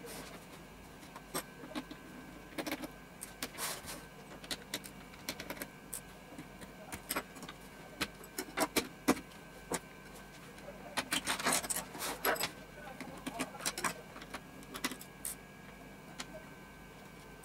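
Scattered plastic clicks, taps and knocks as an HP Pavilion 17 laptop's plastic underside is handled and worked apart with a small screwdriver, with a denser run of clicks about two thirds of the way through.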